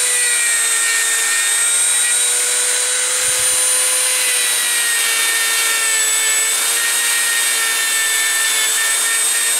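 Dremel rotary tool running with a small wire brush wheel, scrubbing flux off a freshly silver-soldered joint: a steady high whine that wavers slightly in pitch, over a hiss from the brush.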